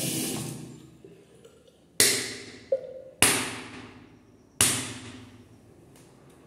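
Three sharp smacks of a flat wooden stick striking an open palm, about a second apart, each dying away quickly, with a fainter click between the first two.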